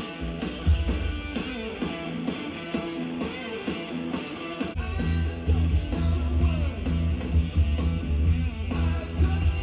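Live rock music led by guitar, with a steady driving beat of about three hits a second; a heavy bass line comes in strongly about five seconds in.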